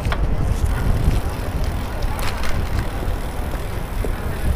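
Wind buffeting the microphone of a helmet-mounted action camera on a moving bicycle: a steady low rumble.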